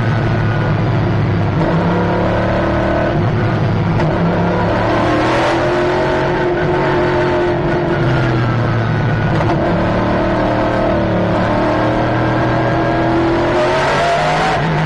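Nissan GT-R GT1 race car's engine heard from inside the cockpit at racing speed, its note climbing and dropping several times as it accelerates through the gears and lifts, over a steady rush of wind and road noise.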